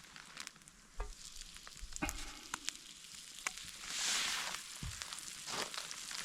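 Breakfast frying in a pan: a steady sizzle with scattered sharp pops and crackles, swelling about four seconds in.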